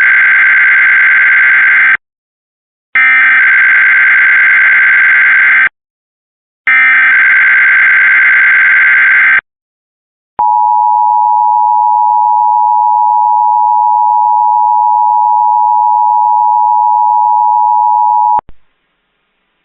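Emergency Alert System SAME header: three harsh, buzzing data bursts about a second apart, followed by the steady two-tone EAS attention signal held for about eight seconds. Together they open a Required Monthly Test broadcast.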